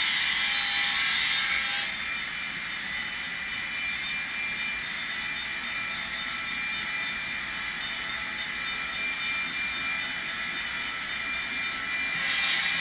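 Model train running along the layout track: a steady whirring hiss with a high whine. It is louder for the first couple of seconds, drops back, then swells again near the end.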